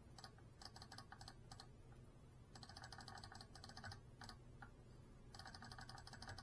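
Faint runs of rapid clicking, three bursts of a second or two each, over a steady low hum in near silence.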